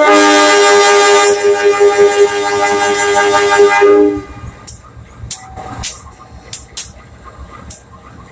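Diesel locomotive's air horn sounding one long blast of about four seconds, a chord of several tones, as the train starts to move off. This is followed by a few short, sharp hisses.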